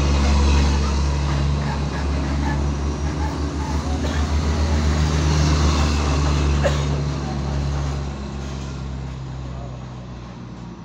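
Engines of 6x6 armoured personnel carriers driving past close by: a deep, steady engine drone that swells as a vehicle passes and fades away over the last few seconds.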